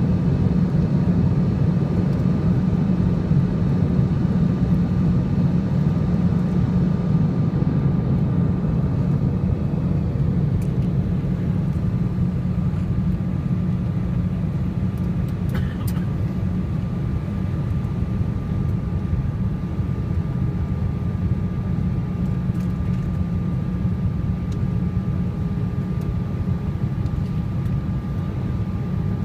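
Steady cabin noise inside a Boeing airliner on approach: a low rumble of jet engines and rushing air with a faint steady whine above it, easing slightly in level.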